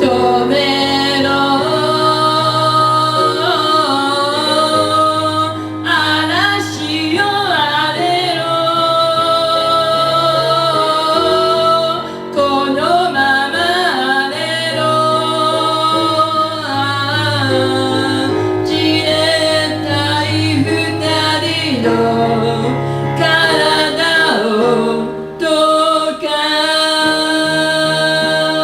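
Live pop song performance: a woman's singing voice holds long notes, sliding between pitches in places, over a steady instrumental accompaniment.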